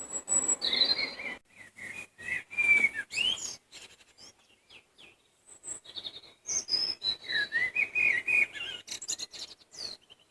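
A songbird singing: two phrases of quick, varied chirps and whistles, the first in the opening three seconds or so and the second from about six seconds in.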